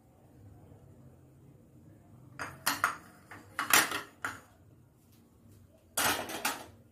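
Metal kitchen utensils and dishes clattering on a hard counter in two bursts: a run of sharp knocks and clinks about halfway through, then another short clatter near the end.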